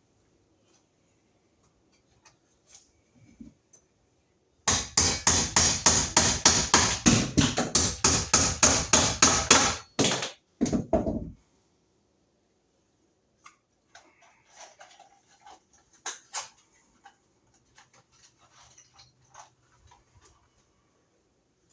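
A fast run of hammer blows, about five a second for some five seconds, starting about five seconds in. Scattered faint knocks and handling noises before and after.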